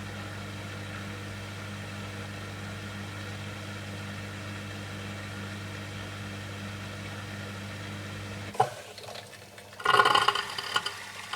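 Bosch dishwasher filling with water, a steady low hum that cuts off with a click about eight and a half seconds in. About a second later comes a brief, louder noisy burst.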